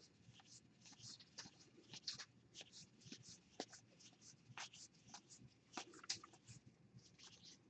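Faint, irregular soft clicks and rustles of cardboard baseball cards being flipped one by one through a hand-held stack, about two a second.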